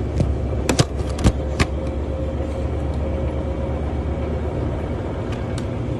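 GE top-loading washing machine in its spin cycle, running steadily with a low hum and a steady whine. It spins properly now that the loose pressure-switch hose has been sealed. A few sharp clicks come about a second in, and one more near the end.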